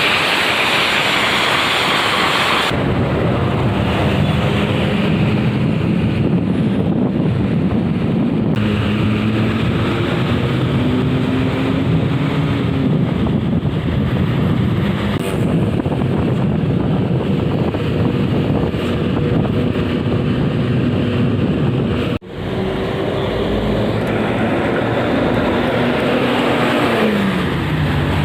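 A bus's diesel engine pulling hard at road speed over road and wind noise. Its pitch climbs slowly and drops back several times as it works through the gears. It opens with a few seconds of loud rushing wind and tyre noise, and the sound cuts out for a moment near the end.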